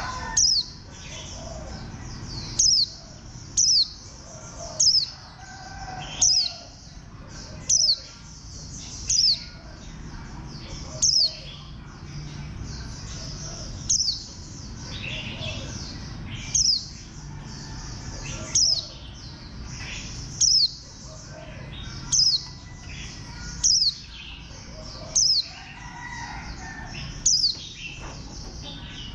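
White-eye calling: short, sharp, high notes that sweep steeply downward in pitch, repeated about every one to two seconds, over softer chattering chirps.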